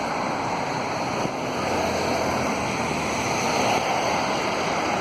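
CP double-stack container train rolling past below: a steady rush of steel wheels on rail.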